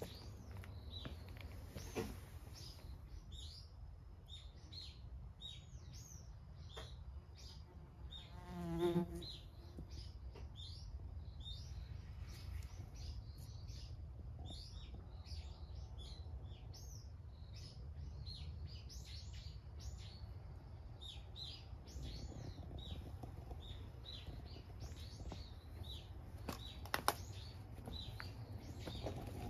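Small birds chirping again and again, many short high chirps over a steady low hum. About nine seconds in comes one brief pitched call, the loudest sound, and there are sharp clicks near two seconds and near the end.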